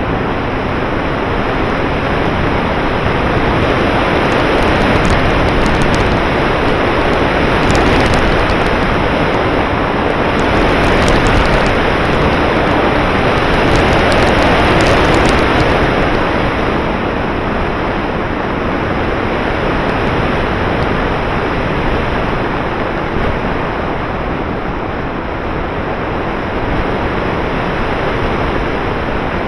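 Steady rush of airflow buffeting the microphone of an action camera mounted on an RC glider in flight, a little louder in the middle stretch.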